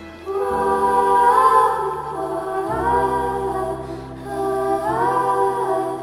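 Background film-score music: a wordless, choir-like melody in three long phrases of held notes, each ending in a slide, over sustained low chords.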